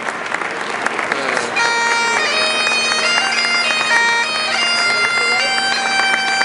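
Applause dies away over the first second or so as a Great Highland bagpipe strikes up. The drones come in with a brief wavering note, and then the chanter plays a melody over the steady drone.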